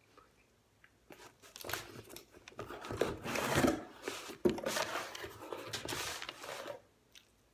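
Paper and packaging rustling and crinkling as sheets are pulled out of a cardboard box, starting about a second in and stopping shortly before the end, with a few sharp crackles along the way.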